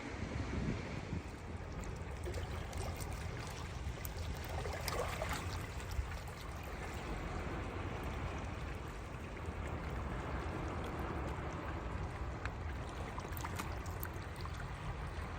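Steady rushing of moving water under a low rumble, with a few faint clicks.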